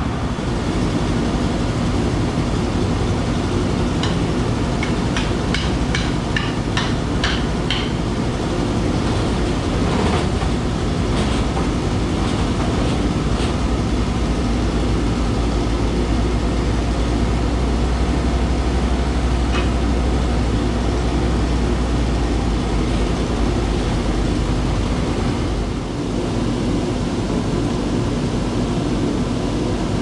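WoodMizer LT35 band sawmill's engine running steadily. A quick series of sharp clicks comes about four to eight seconds in. The engine's low note grows stronger through the middle and eases off near the end, while the saw head travels along the log.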